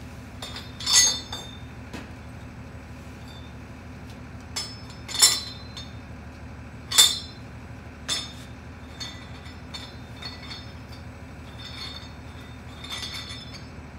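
Steel tools and parts clinking against a steel oilfield pump body: three loud, ringing clanks about a second, five and seven seconds in, then a scatter of lighter clicks.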